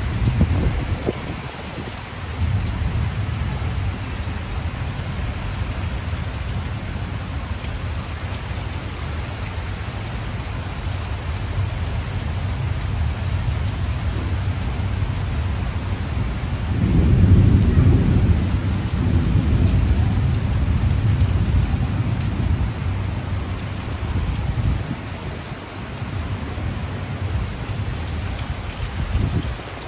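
Heavy rain pouring down in a steady hiss, with low thunder rumbling underneath that swells to its loudest about 17 seconds in.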